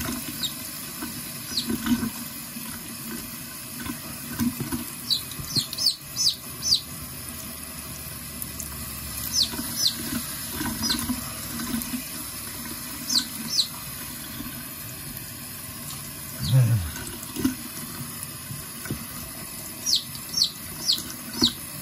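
Faucet running steadily into a sink while a baby chick is rinsed under the stream. Over the water the chick gives short, high, falling peeps in several small clusters.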